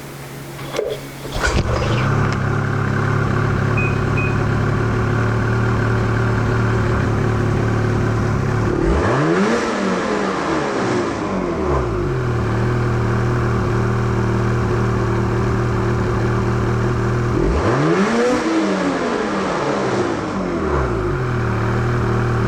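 Snowmobile's two-stroke BRP E-TEC engine running steadily, revving up and dropping back twice, about 9 and 18 seconds in, with fresh spark plugs fitted.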